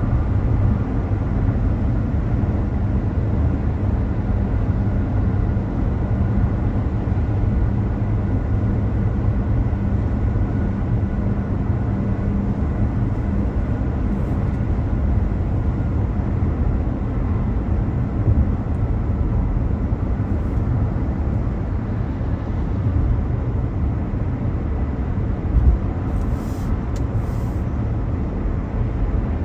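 A car driving: a steady low rumble of engine and road noise, with a short bump near the end.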